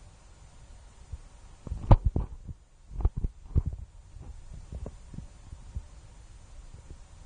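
Handling noise on a mobile phone's microphone: irregular low thumps and a few sharper knocks, bunched together about two to four seconds in, over a faint low hum.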